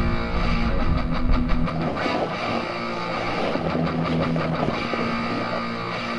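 Heavy rock music with distorted electric guitar and a steady beat.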